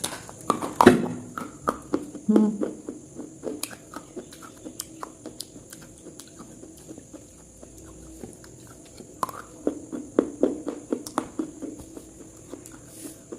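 Short animal calls and scattered sharp clicks and taps over a steady high hiss, busiest in the first three seconds and again from about nine seconds in.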